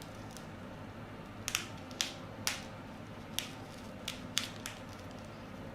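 A scattering of light, sharp clicks, about eight of them at uneven intervals, against quiet room tone.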